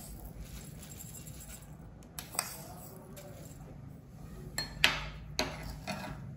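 A few light clicks and clinks of a steel spoon and small bowls as sesame seeds are spooned and tapped out into a bowl of chopped fenugreek leaves, the clearest clink a little before the end.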